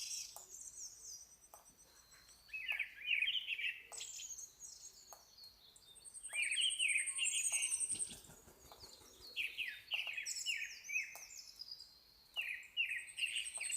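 Wild songbirds singing: a bird repeats a phrase of quick falling notes every few seconds, while a second, higher thin trill comes in twice.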